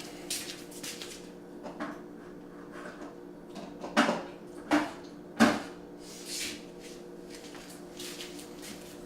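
Three sharp clunks, about two-thirds of a second apart, over a steady low hum, with a few lighter knocks before and after.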